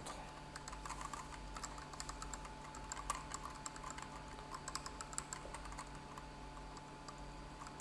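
Faint, quick, irregular key clicks of typing on a mechanical keyboard, over a steady low electrical hum.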